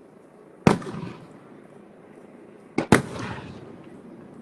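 Fireworks bursting: one sharp bang under a second in, then two more in quick succession about two seconds later, each trailing off briefly.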